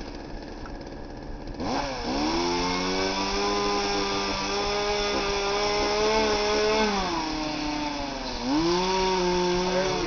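Gas chainsaw idling, then throttled up about two seconds in and held at a steady high pitch as it cuts into a tree trunk. Near seven seconds the pitch falls away, and it revs up again about a second later.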